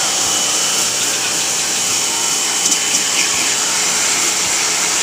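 Pressure washer spraying a jet of water onto the finned coil of a dismantled portable air conditioner to clean it: a steady, loud hiss of spray without a break.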